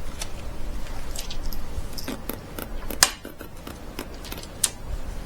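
Scattered small clicks and taps of hardware being handled, the sharpest one about three seconds in.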